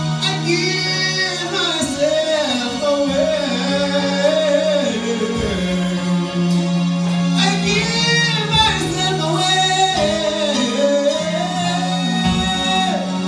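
Youth gospel group singing together, male and female voices into microphones, amplified through a PA over a steady, long-held low instrumental note.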